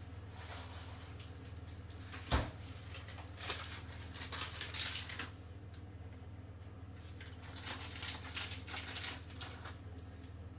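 A single sharp knock about two seconds in, then two spells of crinkly rustling from a plastic wrapper being handled as cheese is crumbled over a salad. A low steady hum runs underneath.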